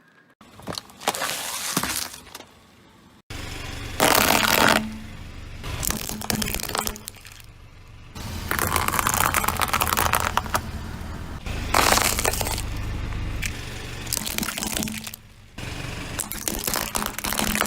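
Things being crushed under a car tyre: a run of separate cracking and crunching spells a few seconds each, one after another, with a low rumble under several of them.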